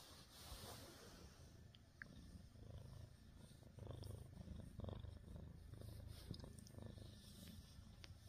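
Domestic cat purring while being stroked: a faint, low rumble that swells and eases with each breath.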